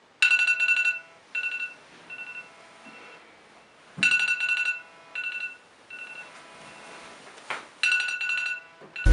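Smartphone alarm ringing in a repeating electronic pattern, each round a loud pulsing note followed by three shorter, quieter notes, coming round about every four seconds. There is a soft thump about four seconds in and a click near the end.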